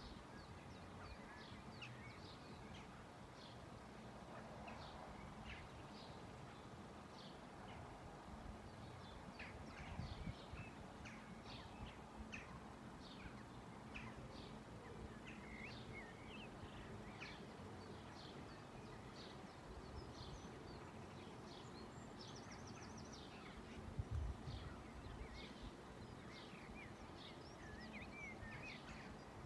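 Small birds chirping and calling over a faint steady outdoor background, with two brief low thumps, about ten and twenty-four seconds in.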